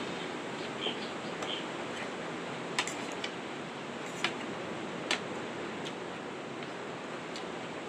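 Steady rush of rough surf and strong wind off the sea. Several sharp clicks are scattered through it.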